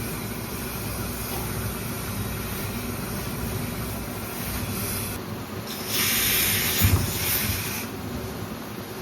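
Industrial steam iron pressing denim jeans, with a burst of steam hissing for nearly two seconds about six seconds in, over a steady machine noise, and a couple of low knocks near the end of the burst.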